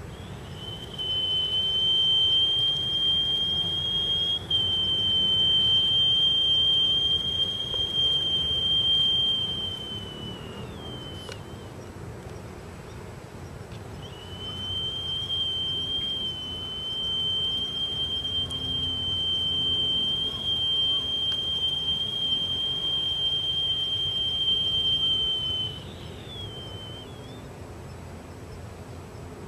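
Ishibue (Japanese stone flute) blown in long, steady high notes: one held for about ten seconds, then after a pause a second held for about eleven seconds. Each ends in a short wavering slide, and a third note begins right at the end.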